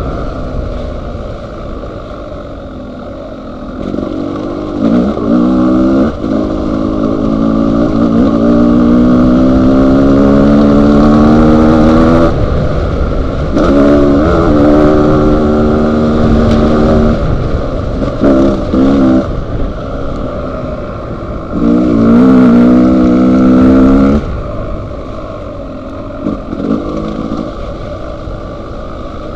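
Dual-sport motorcycle engine heard from the bike while riding a dirt trail: the throttle opens and the pitch climbs steadily for several seconds, backs off, then comes on again in shorter bursts, with a steady low rumble underneath.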